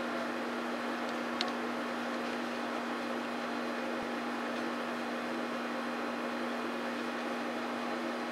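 Steady background hiss with a constant low hum, and one faint click a little over a second in.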